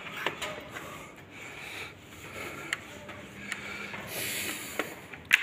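Handling noise from a handheld camera carried through a small stone room: irregular light clicks and rubbing over a low background hiss, with a brief brighter hiss about four seconds in.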